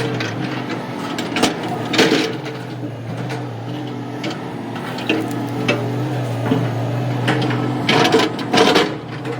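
An engine running steadily at a constant speed, with scattered knocks and clanks on top, loudest a bit after one, two and eight seconds in.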